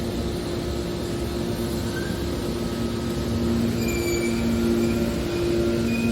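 Heavy industrial machinery running steadily: a low hum with two held tones, getting slightly louder about halfway through, with faint high squeals near the end.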